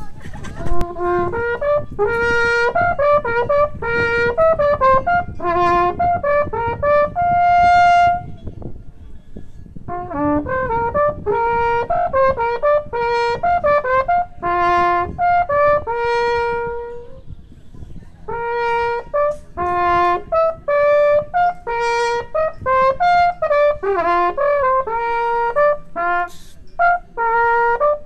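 A Büchel, the short folded Swiss wooden natural horn, played solo: a lively tune of quick, clear horn notes on its natural overtones, in three phrases with short breaks about nine and seventeen seconds in.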